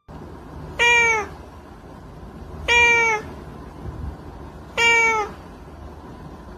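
A domestic cat meowing three times, about two seconds apart, each meow short and dropping slightly in pitch at the end.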